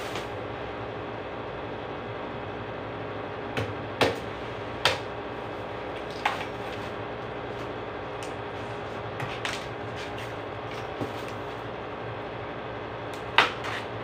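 Tree branches breaking off under the hands with sharp snaps, about eight at irregular intervals, the loudest near the end, over a steady background hum.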